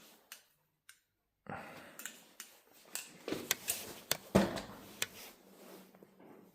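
XDYY Kraken V3 steel balisong being worked by hand: the handles swing on their pivots with a string of sharp metal clicks and handling rustle, the loudest click about four seconds in, after a brief silent gap near the start. The pivot is binding a little.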